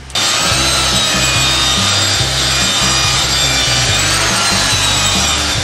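Corded hand-held power tool running steadily as it cuts and shapes a wooden handrail piece, a continuous rasping whine that starts abruptly just after the beginning.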